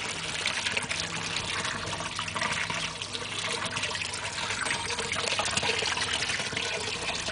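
Water feature trickling and splashing steadily as water spills from the lip of a stone-effect bowl into the pool of water in a half-barrel reservoir below.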